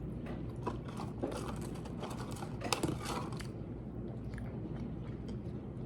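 Someone biting and chewing food close to the microphone, with short crunchy crackles through the first half and the loudest cluster a little under three seconds in.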